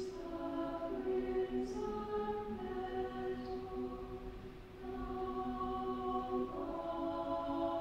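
Mixed chamber choir singing softly a cappella, holding slow sustained chords with soft hissing 's' sounds on the words. The voices break off briefly about four and a half seconds in, then come back in on a new chord.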